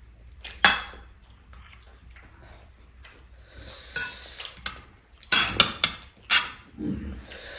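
Cutlery clinking against a dish while eating chow mein: one sharp clink about half a second in, a couple of lighter ones around four seconds, and a quick run of clinks between five and six and a half seconds.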